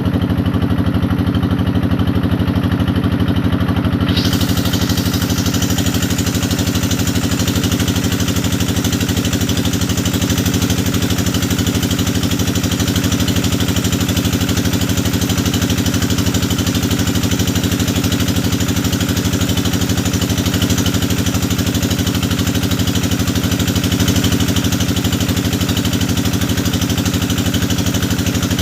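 Engine of a hydraulic deep-well drilling rig running steadily, with a steady hiss joining in about four seconds in.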